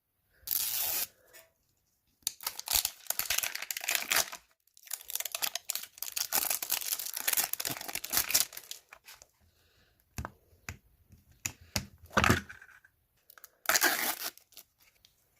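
Plastic packaging of a Mini Brands capsule ball being torn open and crinkled by hand, in a series of bursts with short pauses between them.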